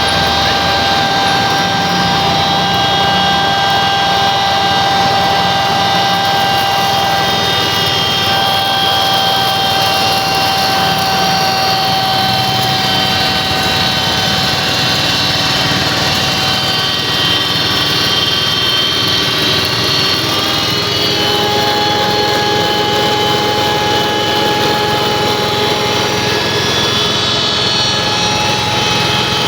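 FFC 23 disk mill grinder running steadily, a loud mechanical din with a high, steady whine over it; the whine's pitch shifts slightly about twenty seconds in.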